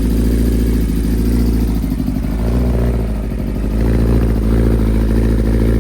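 Kawasaki ZX-10R inline-four idling steadily through an M4 slip-on exhaust with stock headers, about a minute after a cold start; the level dips slightly near the middle.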